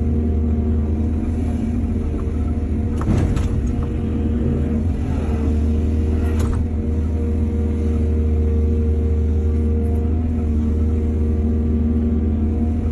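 Heavy diesel excavator engine running steadily, with a sharp clunk about three seconds in and another about six and a half seconds in.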